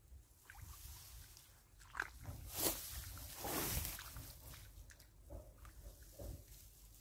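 Splashing and rustling at the pond's edge as hands work in the water among reeds, in a few short noisy bursts, the loudest about two and a half seconds in. Wind rumbles low on the microphone.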